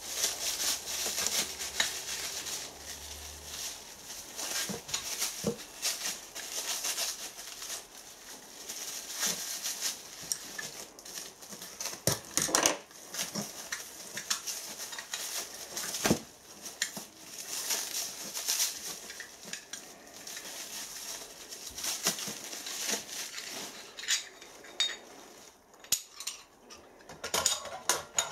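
Plastic wrapping rustling and crinkling as parts are unwrapped from a cardboard box, with scattered clicks and knocks of hard parts being handled. It thins to a few clicks near the end.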